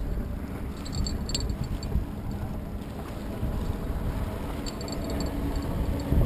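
Motorboat running across the lake, a low engine drone under wind rumble on the microphone, with the hum growing a little in the second half. A few brief clusters of faint high clicks come and go.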